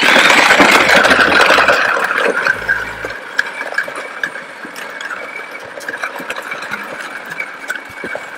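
John Deere 12V battery-powered ride-on toy tractor driving along a concrete sidewalk: its electric motor and gears whine steadily while the hard plastic wheels rumble and click over the concrete. The sound is loudest at the start and eases off after about two seconds.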